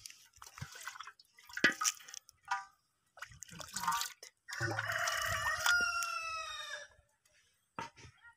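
A rooster crows once, one long call of about two seconds past the middle. Before it come water drips and small splashes, with a sharp knock about a second and a half in.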